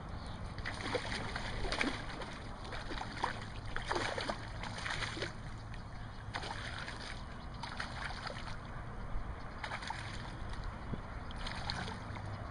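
A hooked largemouth bass splashing at the surface as it is reeled in close: a few short, irregular splashes with water sloshing in between.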